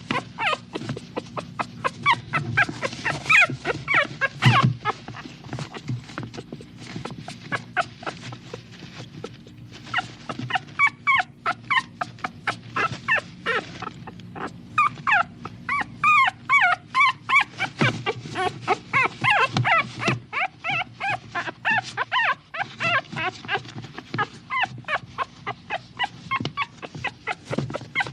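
Small dog whimpering: rapid, short high-pitched whines and yips, several a second, with brief lulls.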